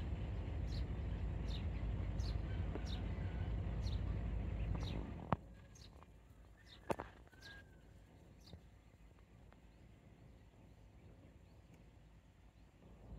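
A bird repeating a short, high, falling call about once a second, fading out about eight seconds in. Under it a low rumble that drops away about five seconds in, and two sharp clicks near the middle.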